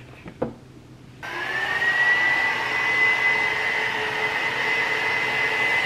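Handheld hair dryer switched on about a second in, its motor whine rising briefly and settling into a steady high tone over a steady blowing noise. A brief sharp sound comes just before it.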